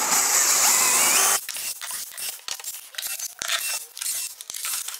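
A loud tearing rasp for about the first second and a half, cutting off suddenly, then a utility knife scraping and clicking in short strokes along the edge of a board.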